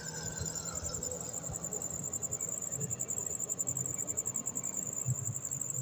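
A steady, high-pitched insect trill, evenly pulsed, over a low background rumble with faint irregular knocks.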